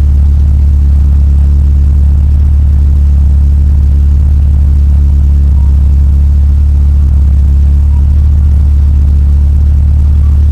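Fiat Spider's twin-cam four-cylinder engine idling steadily while warming up, a loud, even low hum heard from inside the car.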